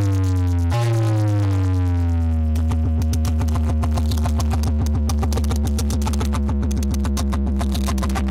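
Electronic dance music played loud through an Ashok Sound DJ speaker-box wall. Over heavy bass, a synth sweeps down in pitch, then about two and a half seconds in it breaks into a fast stuttering beat over a steady bass drone.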